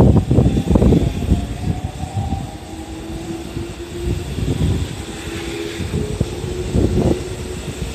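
A JR 313 series electric train pulls out of the station past the platform: its motors whine faintly with a slowly rising pitch as it gathers speed, over a rumble of wheels with irregular knocks, loudest in the first second or so.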